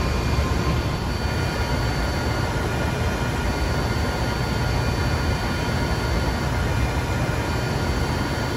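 Steady rushing noise of server and cooling fans in a data center, with a few faint steady whines above it.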